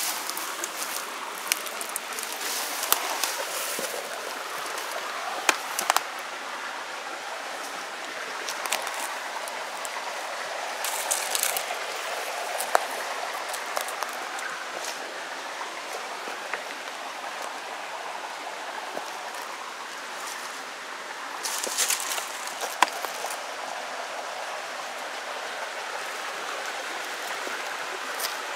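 Steady rushing of flowing stream water, with scattered sharp clicks and brief rustling bursts about eleven and twenty-two seconds in.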